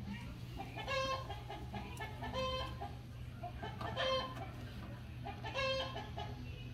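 Chickens clucking: four short calls about a second and a half apart, over a steady low hum.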